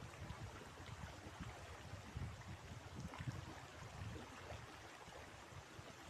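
Wind buffeting the microphone in irregular low gusts over the steady rush of a flowing river.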